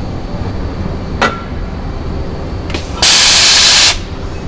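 A compressed-air blow gun blasting for about a second, a loud even hiss that cuts off sharply, after a short metallic clink and a brief puff of air, over the steady hum of a machine shop.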